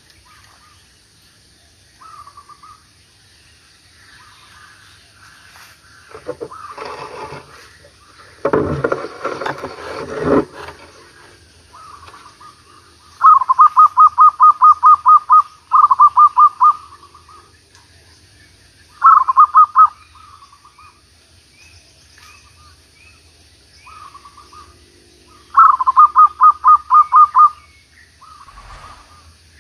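Zebra doves calling: four bursts of rapid, staccato cooing notes at about seven a second, each one to two seconds long, in the second half. A loud rustling noise comes about seven to ten seconds in.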